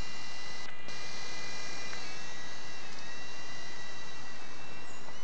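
The Topp Toys Gyro 1215 coaxial toy helicopter's small electric motors whine in flight over a steady hiss. The whine's pitch dips and shifts briefly about two and three seconds in.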